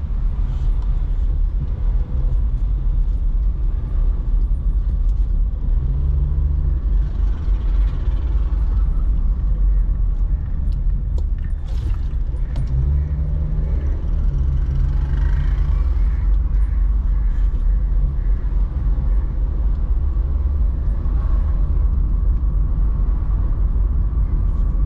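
Car driving along city streets: a steady low rumble of engine and road noise, with a humming engine note that comes in about six seconds in and again for a couple of seconds around the middle.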